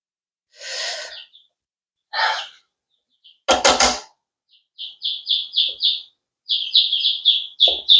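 Day-old chicks peeping in a fast run of high calls, about four a second, starting about five seconds in. Before that come two short breathy sounds and one loud, sharp burst.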